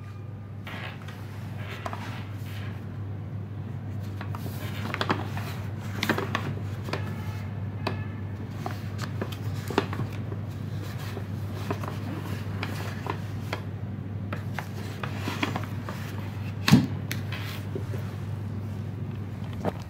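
A cardboard fireworks battery box being handled on a wooden table: scattered taps, scrapes and knocks as it is picked up and turned, with one louder knock about 17 seconds in, over a steady low hum.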